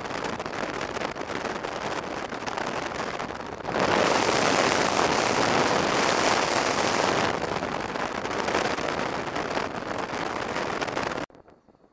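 Wind rushing over the microphone of a handlebar-mounted camera on a Honda XRV750 Africa Twin motorcycle riding at highway speed, mixed with road noise. It swells louder for a few seconds in the middle, then cuts off abruptly near the end.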